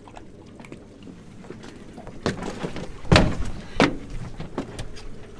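Three dull thuds with lighter knocks and clicks between them, the loudest about three seconds in.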